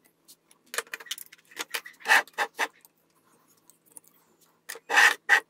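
Irregular clicks and short scrapes of small hard objects being handled, with two louder scrapes, one about two seconds in and one near the end.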